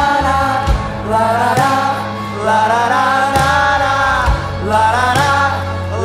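Live worship song: voices singing long held notes over strummed acoustic guitars and electric guitar, with a steady beat of drum hits.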